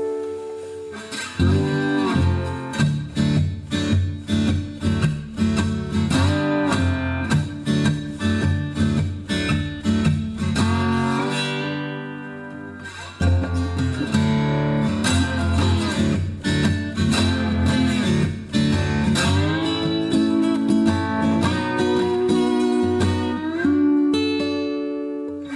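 Acoustic guitar with a newly fitted Skysonic T-902 dual pickup, strummed and picked in a sound test. The chords ring out, and the playing dies away about twelve seconds in, then comes back with a hard strum.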